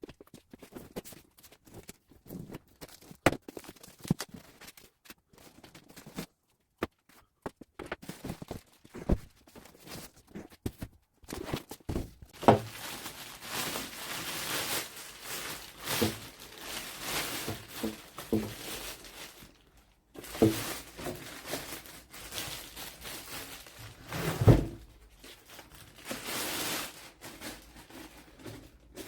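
Packaging being opened and handled: rustling, tearing and crinkling with scattered knocks and thuds, the loudest thud about 24 seconds in.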